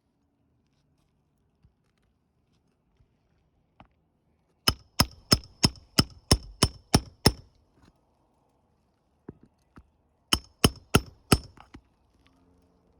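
Hammer striking metal: a quick run of about nine blows, then a few seconds later four more, each with a short metallic ring.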